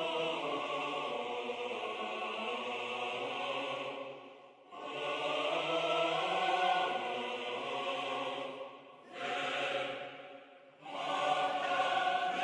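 Background music: a choir singing slow, sustained chant-like phrases, with two short breaks between phrases.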